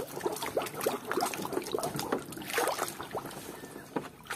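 Muddy water sloshing and splashing in a plastic basin as a hand scrubs a plastic toy cow, in quick irregular small splashes.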